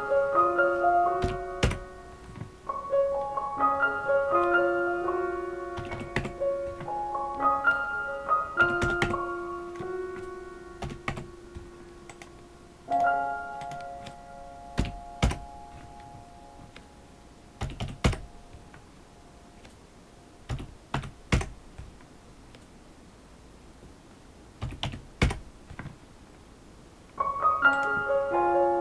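Computer keyboard keystrokes and mouse clicks, coming singly and in short runs, over background music that plays through roughly the first half and comes back near the end.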